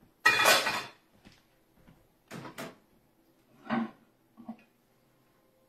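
Kitchen handling noise: a loud clatter of a metal pan set down in a sink about a quarter second in, followed by a few lighter knocks and clicks as a door is opened.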